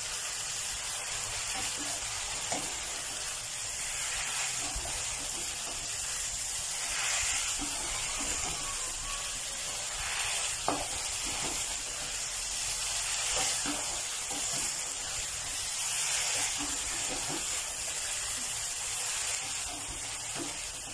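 Chicken breast pieces and cucumber sizzling steadily as they are stir-fried in a non-stick pan, with a spatula stirring and now and then clicking against the pan; the sharpest click comes about halfway through.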